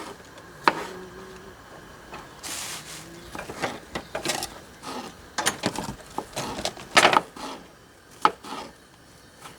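Kitchen knife cutting vegetables on a wooden cutting board: irregular single knocks and short clusters of strikes, unhurried and uneven.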